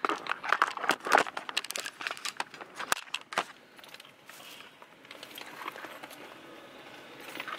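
Rustling, crinkling and small clicks of a person shifting about and handling things in a car seat, busy for about the first three and a half seconds and then dying down to a faint steady background.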